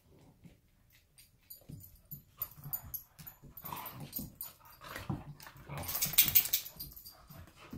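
Two dogs scuffling with each other, with low growls starting a couple of seconds in and a louder flurry of scuffling near the end.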